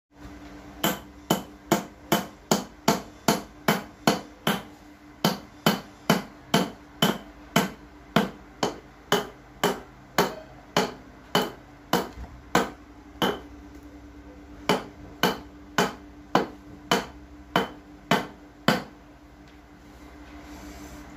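A hammer striking a USB Type-C phone charger on a tile floor again and again: sharp knocks, about two a second, with one short pause partway through. The blows stop a couple of seconds before the end, leaving a steady low hum.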